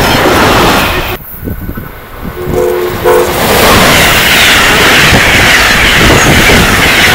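An Amtrak locomotive's K5LA air horn sounds two short, light blasts. A train then passes at speed with a loud, steady rush of wheels on the rails. A loud rail rush before the horn cuts off abruptly about a second in.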